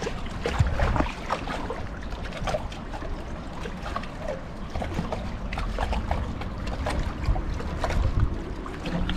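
Water sloshing and splashing, with irregular small splashes and knocks, under a gusty low rumble of wind on the microphone.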